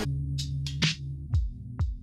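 Electronic background music: held low synth notes under a drum-machine beat of deep kicks about every half second and crisp high hits.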